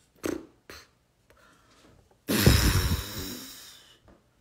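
A woman's breath blown hard into the phone's microphone: a sudden loud rush of air about two seconds in that fades away over about a second and a half. Two short vocal sounds come just before it.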